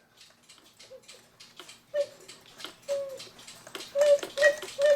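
Irregular clicks and light knocks of handling a cuckoo clock's works. Several short, soft, single-pitch toots start about two seconds in and come more often toward the end, as from a cuckoo bellows pipe being worked without enough weight on the bellows.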